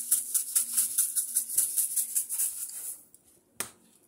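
Seasoning shaker shaken over a raw steak, the dry granules rattling in quick, even shakes at about five a second. It stops about three seconds in, with one click near the end.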